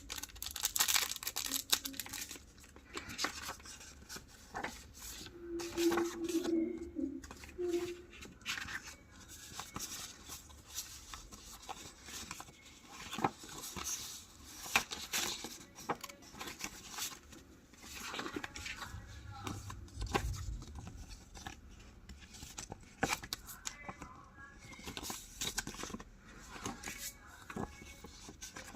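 Paper being handled for journal making: irregular rustling, tearing and snipping, with many small clicks and taps.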